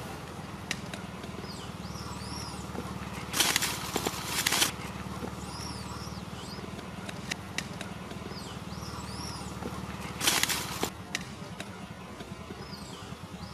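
Outdoor ambience with a steady low hum. A bird calls a short rising-and-falling phrase about every four seconds. Two loud noisy bursts, about three seconds in and again near ten seconds, and a few sharp clicks.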